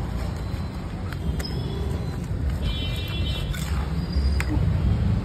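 Metal masher working a heap of vegetables on a large flat griddle, with a few sharp clinks of metal against the pan, over a steady low street rumble.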